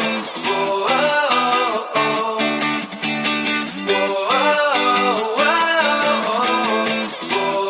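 Background music: a song with plucked guitar and a melodic line.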